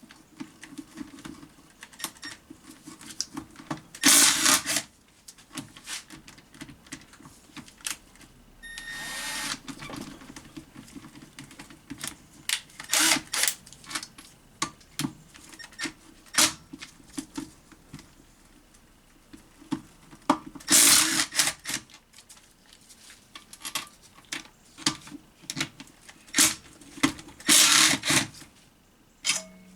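Hand tools and metal gearbox parts clicking and clattering during a transmission teardown, with a few louder bursts about a second long.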